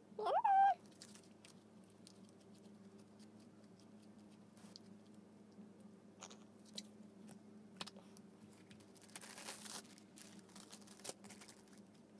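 Faint sticky clicks and crackles of homemade slime being stretched and squeezed in the hands, busiest near the end, over a low steady hum. A brief rising vocal sound right at the start is the loudest thing.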